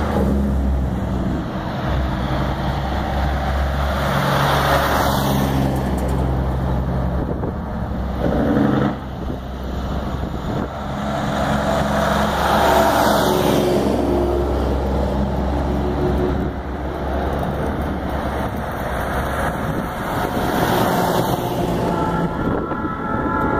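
Diesel semi-truck tractors driving past one after another at low speed, the engine sound swelling as each passes, about three times. A horn starts to sound near the end.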